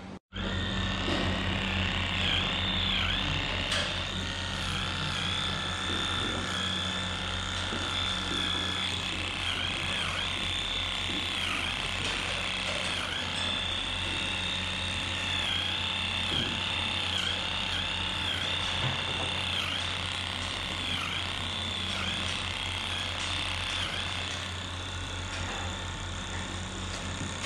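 Handheld electric rotary brush running on a cow's tail, a high motor whine over a steady low hum, its pitch dipping briefly again and again as it is worked through the tail hair.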